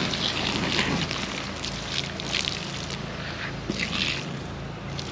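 Water sloshing and splashing in short bursts, a few times, as cups of water are poured over a campfire to douse it.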